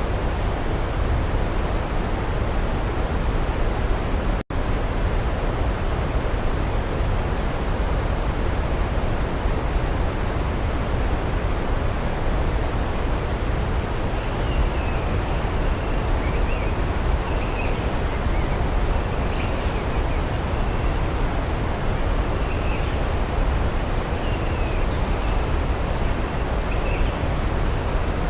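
Waterfall rushing with a steady, even roar, broken by a split-second gap about four seconds in. From about halfway through, distant birds chirp faintly over it.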